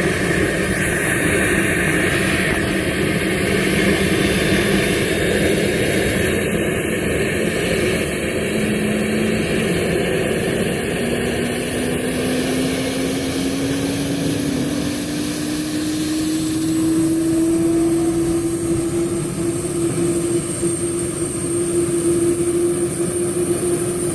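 Medical helicopter's engine and spinning rotors running loud and steady. In the second half a whine slowly rises in pitch as it spools up toward takeoff.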